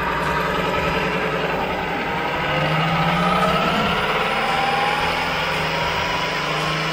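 Rebuilt Velvet Drive 5000 marine transmission being bench-run on a test stand, with a steady mechanical hum and whine whose pitch drifts slightly, while transmission fluid circulates through the rig's filter and pressure gauge.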